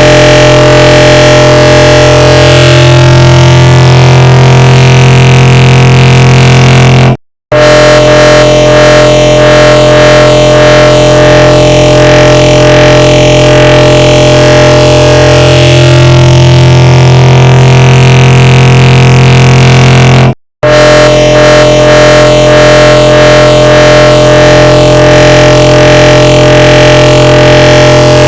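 The 'bruh' sound effect layered on itself a huge number of times, merged into a loud, steady drone of held tones. It cuts out completely for a split second twice, about seven seconds in and about twenty seconds in.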